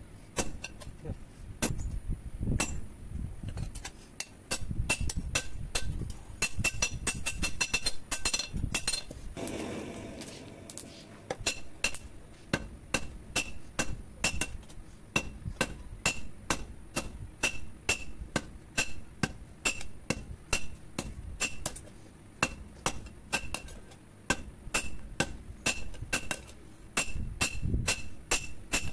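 Hand hammer striking red-hot steel on a steel anvil block in a steady run of blows, about two a second, each with a bright metallic ring. The piece is an old power-tiller plough blade being hot-forged into a dao.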